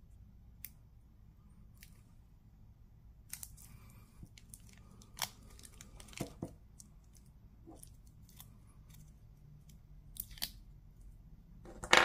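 Small clicks and light scrapes from a metal butterfly deployment clasp and a spring bar tool being worked on a silicone watch strap, with the loudest, sharpest click right at the end.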